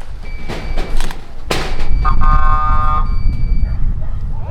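A few short, sharp noisy bursts, then a steady horn-like tone held for about a second, about two seconds in, over a constant low rumble.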